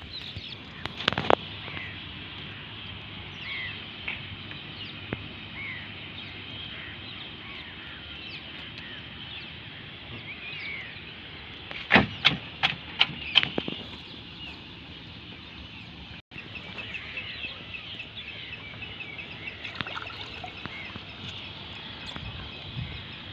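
Small birds chirping over and over in the background, over a steady outdoor hiss. A few sharp knocks about a second in, and a quick run of four or five louder knocks about halfway through.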